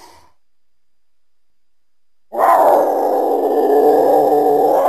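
Cougar (mountain lion) giving one loud, harsh, drawn-out call that starts abruptly about two seconds in and holds steady for about three seconds.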